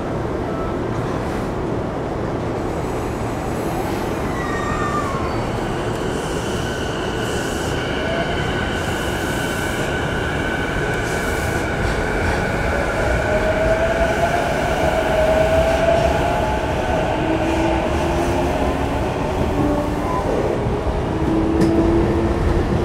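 Running sound inside a JR East E233-1000 series electric train as it pulls away and gathers speed. The Mitsubishi IGBT-VVVF inverter and traction motors whine, one tone climbing steadily in pitch for several seconds, over a constant rumble of wheels on rail.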